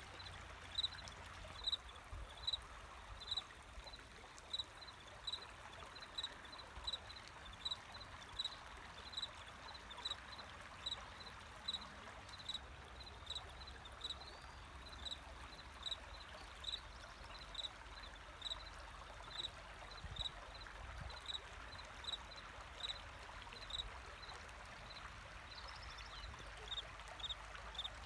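Cricket chirping steadily, short high chirps a little over once a second, over a constant trickle of running water.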